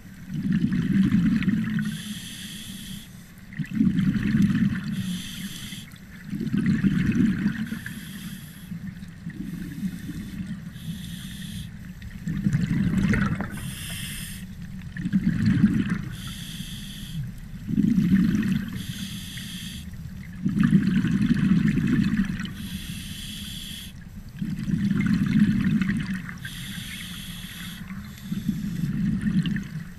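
Scuba diver breathing through a regulator underwater: a hissing intake through the regulator alternating with a low bubbling rush of exhaled air, about one breath every three seconds, some ten breaths in all.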